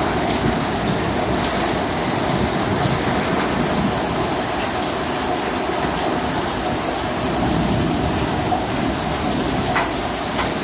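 Steady heavy rain falling, with a few faint drips and ticks.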